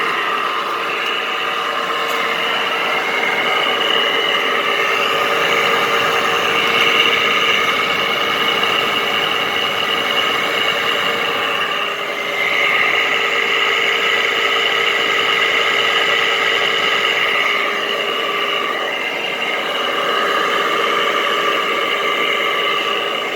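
Frigidaire window air conditioner running, with a steady hum and several high whining tones that swell and fade every few seconds. The noise comes from bad bearings, which the owner calls horrible.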